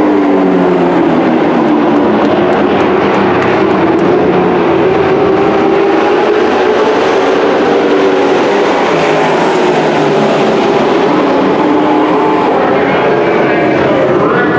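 Engines of a pack of dirt-track race trucks running at racing speed. Several engine notes overlap and slide up and down in pitch as the trucks pass.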